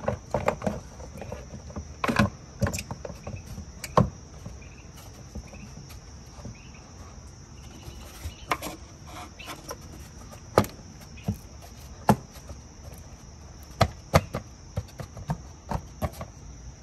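Plastic engine cover of a Lexus CT200h being handled and pressed back down onto its rubber grommets: scattered knocks and clicks, a dozen or so sharp ones. A steady high insect trill runs underneath.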